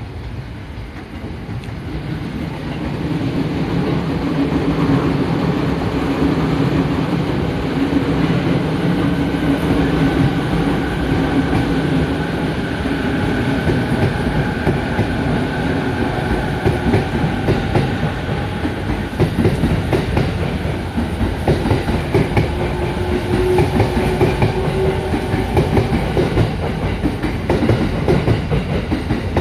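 Electric commuter train pulling out of the platform and gathering speed. Its motors whine in a few steady tones over the rumble of the wheels on the track, and the sound grows louder over the first few seconds.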